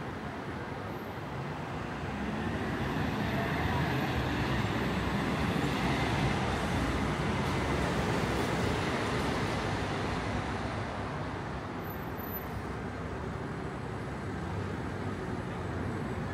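A road vehicle passing on a city street: its engine and tyre noise swells over a couple of seconds, holds for several seconds, then fades away, over a steady background hum of traffic.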